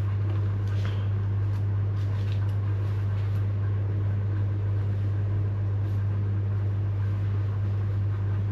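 A steady low hum with a few faint rustles and soft knocks from clothes and a bag being handled while packing.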